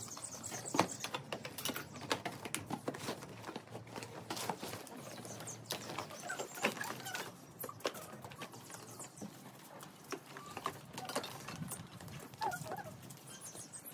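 Handling noise as camping gear is unpacked: irregular rustles, clicks and light knocks from a rucksack, a cardboard box and a sleeping mat being moved about and laid out in a dome tent.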